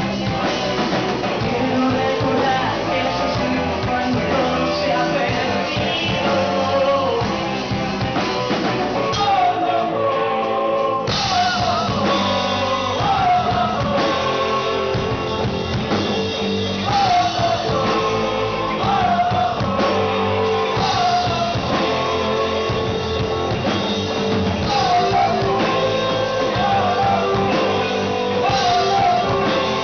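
Live rock band playing: distorted electric guitars, bass and drum kit, with a singer's voice over them. About nine seconds in, the cymbals and low end drop away for roughly two seconds, then the full band comes crashing back in.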